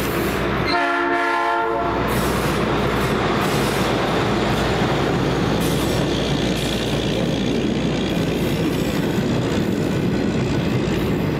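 A hi-rail boom truck gives one horn blast about a second long, just under a second in. A string of gondolas then rolls steadily past, with loud steel wheel-on-rail rumble and clatter.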